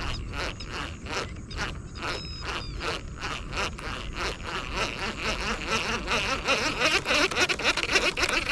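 Fishing reel being cranked, a regular run of ticking clicks about four a second as line is wound in.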